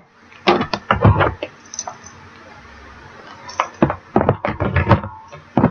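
Small clear plastic compartment containers clicking and clattering as they are handled, in two clusters of sharp knocks, the second starting about three and a half seconds in.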